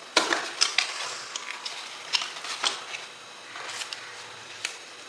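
Hands taking small plastic action-camera accessories out of their packaging: irregular clicks and rustles of plastic being handled.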